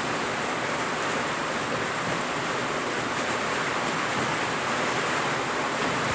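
Gas stove burner hissing steadily on a low flame under an empty frying pan as it heats.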